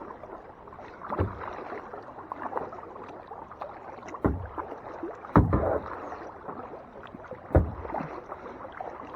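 Kayak being paddled: paddle dipping and water splashing and trickling around the hull, with four sharp knocks about 1, 4, 5½ and 7½ seconds in.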